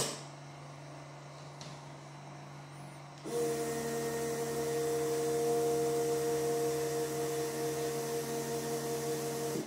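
Weller WXHAP 200 hot air pencil blowing: a short knock at the start, then a little over three seconds in the air flow starts suddenly, with a steady hiss and a steady humming tone from the air supply, as the pencil heats toward 380 °C.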